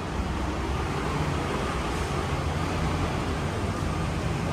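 Steady low rumble of passing vehicles, with a faint even hum.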